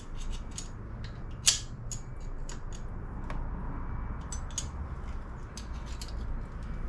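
Irregular light metallic clicks of a 3/8-inch ratchet working the rocker arm support bolts loose on a Harley-Davidson Twin Cam 96 cylinder head, with one sharper click about a second and a half in.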